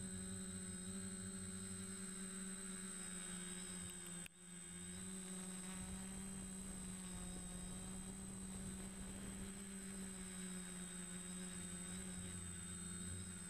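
DJI Flamewheel F450 quadcopter's motors and propellers humming steadily in flight, heard through its onboard camera, with a thin steady high whine above. The sound dips briefly about four seconds in.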